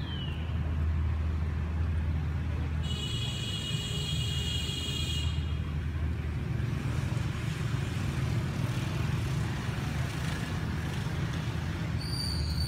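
Steady low outdoor rumble, with a high buzzing whine lasting about two seconds from about three seconds in, and a short high tone near the end.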